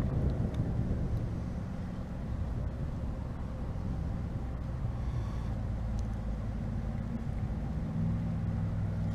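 A steady low engine hum over a low rumble. The hum grows stronger and more even near the end.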